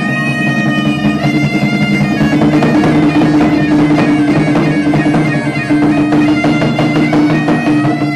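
Bagpipe (Portuguese gaita de foles) playing a lively tune over its steady drone, with a large bass drum beaten in rhythm beneath it.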